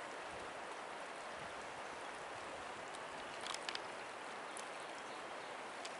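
Steady outdoor hiss of a cool breeze over choppy lake water, with a few faint clicks about three and a half seconds in.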